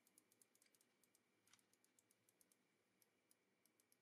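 Near silence, with very faint irregular ticks several times a second.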